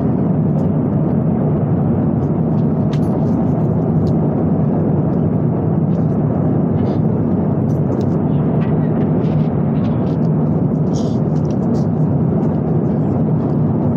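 Steady in-flight cabin noise of a jet airliner, an even, unbroken hum and hiss of engines and airflow. Faint scattered crinkles and clicks come through it as a foil lid is peeled off a small cup.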